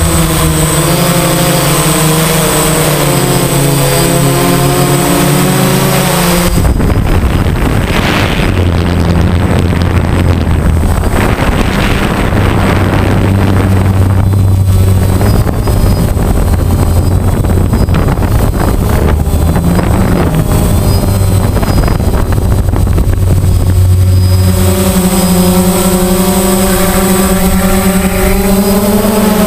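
DJI Phantom quadcopter's motors and propellers whining as heard from the camera mounted on the drone, their pitch wavering as it manoeuvres. From about six seconds in until near the end, a rushing of wind over the microphone mostly covers the motor tones, then the wavering whine returns.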